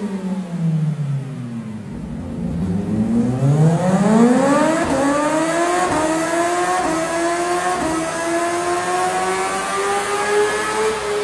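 CFMOTO 500SR S motorcycle engine through its aftermarket exhaust, under way. The engine note falls as it slows, then revs up hard. Several short dips in pitch follow as it shifts up, and it pulls on at slowly rising revs.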